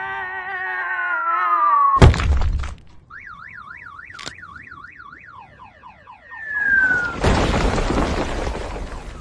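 Cartoon sound effects: a long falling whistle ending in a loud crash about two seconds in, then a warbling alarm-like tone, a short falling whistle, and a second, longer crash that fades near the end.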